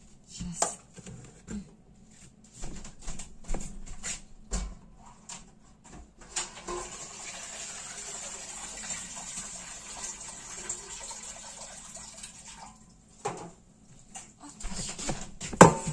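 Scattered light clicks of kitchen handling, then liquid running steadily for about six seconds, then several sharp knocks near the end as a metal tray is handled.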